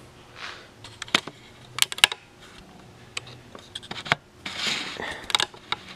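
Scattered sharp clicks and taps of a laptop in a plastic hard case being handled and settled on an aluminium stand, with a short brushing rustle just before a last cluster of clicks near the end.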